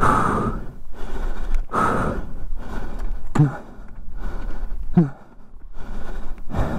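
A man panting heavily after hard physical exertion, close to the microphone: about five deep, gasping breaths, one every second and a half to two seconds. Two of the breaths carry a short bit of voice.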